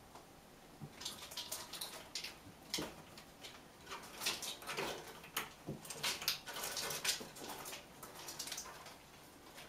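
Kittens' claws scratching and scrabbling on the bark of tree-branch climbing posts, with the odd knock of paws landing, in irregular bursts starting about a second in.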